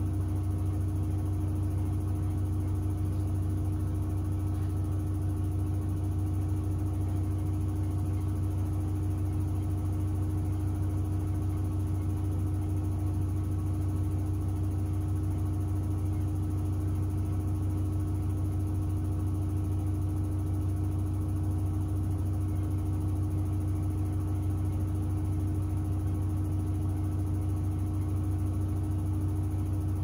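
Miele W1 front-loading washing machine running with a steady, deep hum that does not change.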